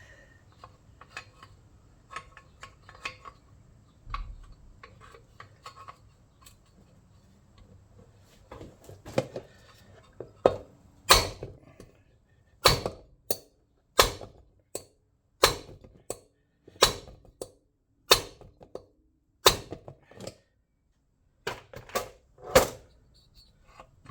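A hammer striking a seized metal part of a Tecumseh lawnmower engine, trying to knock it free: light tapping and clinking at first, then about ten seconds in a run of about a dozen sharp, loud metal blows roughly one to one and a half seconds apart.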